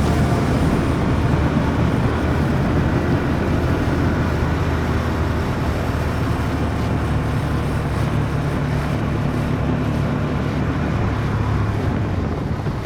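Motorcycle engine running steadily while riding, under a constant rush of noise.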